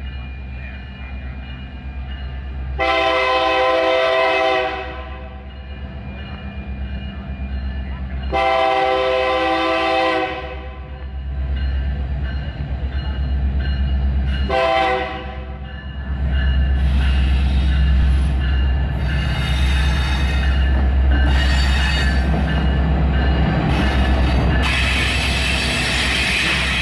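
An SD70ACe-BB diesel locomotive's horn sounds three times, two long blasts and then a short one. The locomotive's rumble then rises as the loaded ore train rolls past, with wagon wheels squealing and clattering on the rails.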